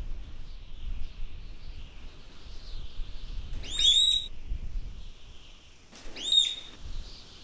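Two short, high chirping calls, each a quick cluster of rising-and-falling notes, about three and a half and six seconds in, over a steady faint high hiss.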